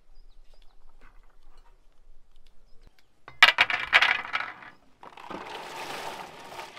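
Rosehips dropping onto a metal tray, a quick clatter of small light impacts about three and a half seconds in. Near the end comes a rushing pour as a colander of rosehips is tipped into a metal cauldron.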